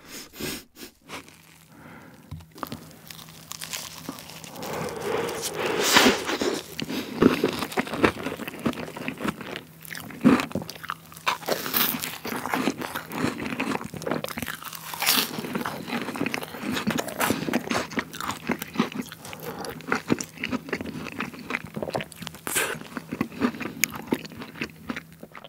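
Close-miked crunching and chewing of crisp pavlova meringue with whipped cream, with loud sharp crunches as each bite breaks the meringue. A few light handling clicks come in the first couple of seconds before the crunching gets going.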